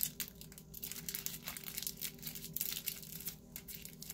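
Irregular crinkling and rustling as a handful of makeup brushes is handled, with a faint steady hum underneath.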